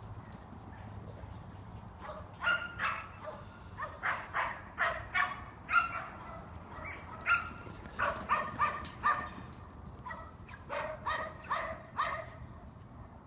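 Track dog barking repeatedly in quick runs of short barks, starting a couple of seconds in, with a brief pause shortly before the end.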